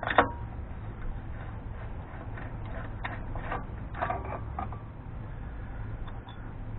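Scattered metallic clinks and scrapes from a tool working the inner spindle nut off a Dana 44 front axle spindle, in a few short clusters over a steady low hum.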